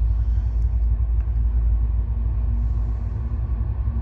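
Low, steady rumble of an approaching CN diesel freight train, with a faint steady engine hum running under it.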